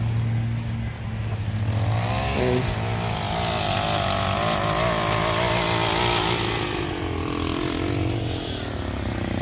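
Gas-powered string trimmer running, its engine note climbing and getting louder about two seconds in, then wavering up and down as it is worked.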